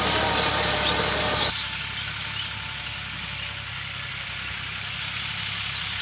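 Massey Ferguson 260 tractor's diesel engine running under load as it pulls a disc harrow through dry soil. About a second and a half in it drops suddenly to a quieter, more distant steady running.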